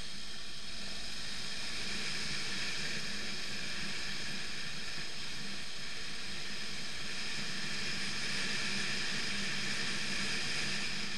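BMW F 650 GS motorcycle riding along a gravel road: a steady hiss of wind and tyre noise, with the engine's low hum underneath.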